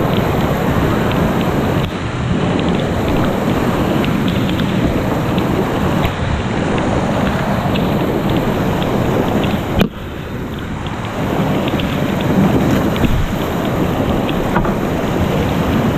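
Creek whitewater rushing loudly right at a kayak's bow-mounted camera, with many small ticks of water drops hitting the camera housing. A single sharp knock comes about ten seconds in.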